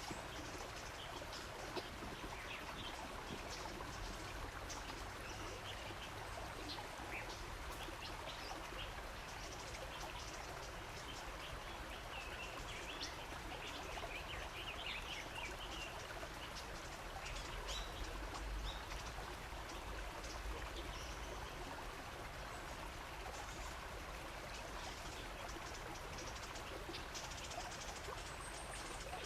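Steady running water, with small birds chirping briefly now and then.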